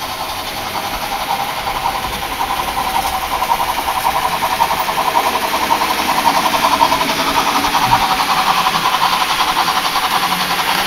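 Märklin model trains running on the layout: a steady mechanical whir and rapid rattle of the locomotive motors and wheels on the track, growing slightly louder.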